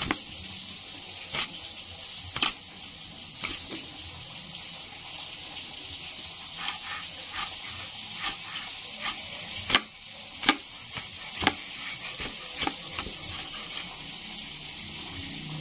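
Knife chopping onions on a cutting board: irregular sharp knocks that come quicker in the middle, over a steady sizzle of frying oil.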